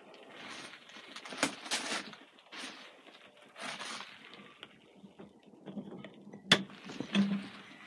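Scattered rustles and knocks of movement in a small room, then a sharp metal click about six and a half seconds in: the latch of a caravan's interior door with a lever handle being opened.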